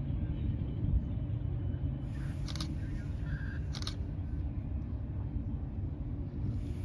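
Steady low background rumble with a faint hum, broken by two short clicks about a second apart near the middle.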